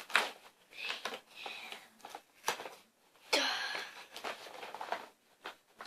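Cardboard and plastic toy packaging being handled and pulled at: irregular rustles and scrapes, with a sharp click about halfway through and a longer scrape soon after.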